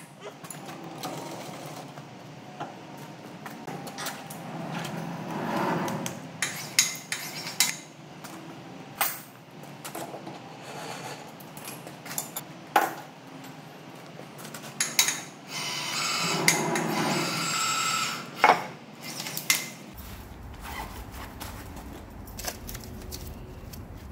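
Irregular metal clanks, knocks and rattles of steel workshop gear being handled: a lathe chuck being loosened and a lifting chain being rigged. Two longer clattering stretches come about five and sixteen seconds in.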